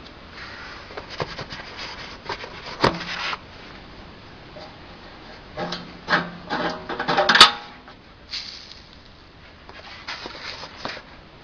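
Irregular knocks, scrapes and rubbing from hands handling the metal fittings of a small belt-driven feed crusher, with a sharp click near three seconds in and the loudest clack about seven and a half seconds in.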